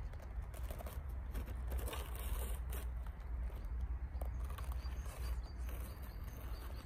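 The knobby tyres of a Cross-RC UC6 scale RC truck crunching and crackling irregularly through crusted snow as it crawls forward, over a steady low rumble.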